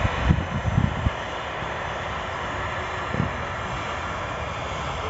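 Airbus A320-214's jet engines running steadily at a distance, heard as an even roar, with a few low thumps in the first second and another about three seconds in.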